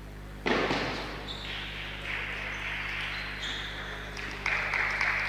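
Table tennis rally: the celluloid ball clicks off the bats and the table over a loud hiss of hall noise that starts suddenly about half a second in. The noise steps up again near the end as the point is won, with sharp hand claps.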